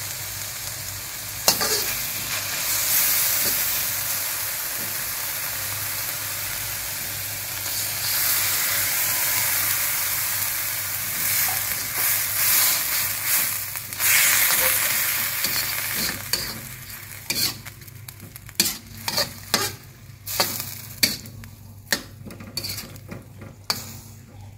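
Meat and bok choy stir-frying in a stainless steel wok, sizzling steadily as a metal spatula stirs and scrapes them. Water is added, and after the sizzle dies down the last seconds hold sharp clinks of the spatula against the wok.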